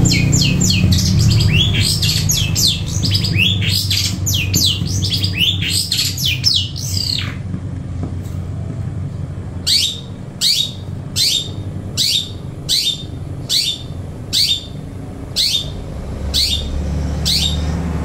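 A caged songbird calling loudly: a rapid run of sharp, falling whistled notes for the first seven seconds or so, then, after a short pause, a string of about eleven single falling notes, roughly one every three quarters of a second.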